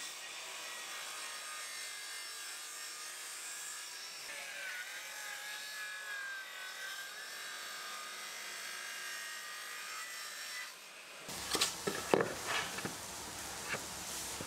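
Sliding mitre saw running with a steady high whine, its pitch dipping about four seconds in and recovering a few seconds later as the blade cuts through a laminated skirting board. Near the end the whine stops and a few short knocks follow.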